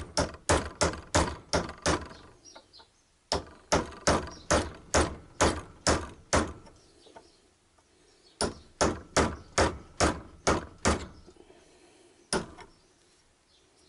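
Hammer blows, sharp metal-on-metal, struck on the end of a long tool held against a seized fastener on the back of a motorcycle alternator, trying to shock it loose. The blows come in three quick runs of about three a second with short pauses between, then one last single blow; the fastener is not budging.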